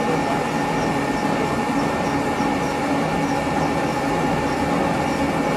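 Pipe extrusion and coiling machinery running steadily, a continuous mechanical drone with several steady hum tones and a faint high tick repeating about twice a second.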